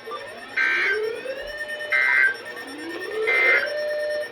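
An alarm clock beeping in three short bursts about 1.4 s apart. Under it a tone rises and levels off over and over, like a siren whoop.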